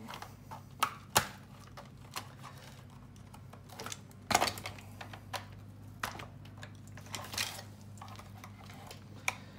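Irregular clicks and taps of a screwdriver and plastic parts being handled while a Shark Ion RV700 robot vacuum is taken apart, the sharpest about a second in and just past four seconds. A faint steady low hum runs underneath.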